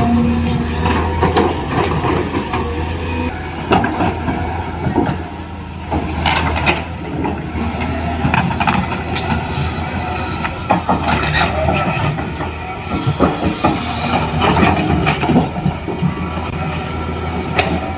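Toy RC excavator's small electric motors and plastic gears running with a steady low hum, over frequent irregular clicking and scraping.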